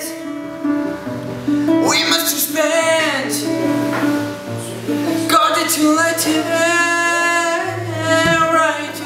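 A man singing a slow melody to his own classical guitar, which he plucks in sustained notes underneath. His voice comes in about a second and a half in, drops out around three seconds, then returns with a long held note in the second half.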